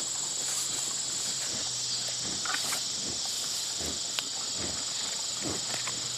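Steady high-pitched insect chorus, with scattered soft thumps and a single sharp click about four seconds in.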